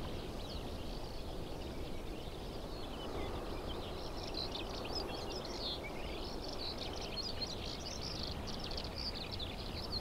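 Open-steppe ambience: many small birds chirping in short, high, overlapping calls over a steady low wind rumble.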